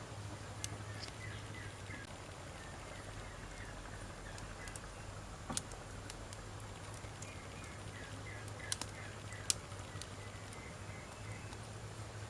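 Wood fire crackling, with scattered sharp pops, the loudest about five and a half seconds in and again near nine and a half seconds, over a steady low hum.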